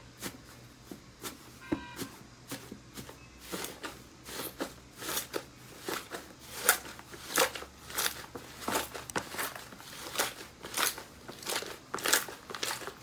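Crunchy slime being pressed and squeezed by hand, giving a run of sharp crackles and pops a few times a second. These grow louder and come more often from about three seconds in.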